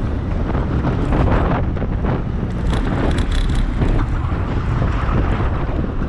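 Wind buffeting the microphone of a camera carried on a moving bicycle: a loud, steady low rumble that rises and falls without a break.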